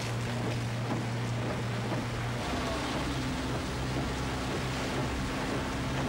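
Vehicle engine droning under a steady wash of heavy rain and wind, heard from inside the moving vehicle; the engine note shifts about two and a half seconds in.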